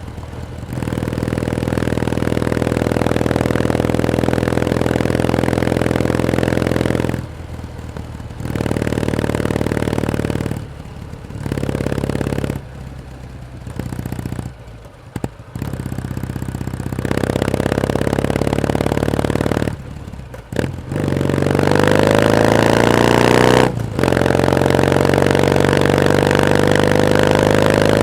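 Kawasaki W1S vertical-twin engine pulling the motorcycle along the road, with several brief drops as the throttle is rolled off. From about 21 seconds in, its pitch rises steadily as the bike accelerates.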